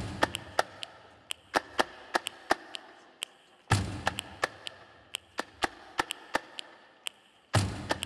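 Percussion soundtrack built from knocks and taps recorded on a building's windows, rain gutters and walls, mixed with body percussion. Sharp taps and knocks fall in a quick, irregular rhythm, and a deep thud with a ringing tail lands three times: at the start, near the middle and near the end.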